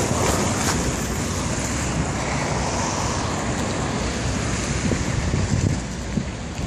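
Wind rumbling and buffeting on the microphone over a steady outdoor rushing noise.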